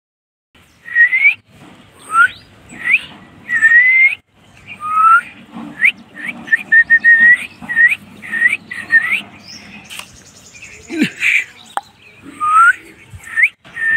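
Dachshund's high-pitched whining yelps during rough play with a hand: a long string of short cries that slide up and down, with a low growl underneath through the middle.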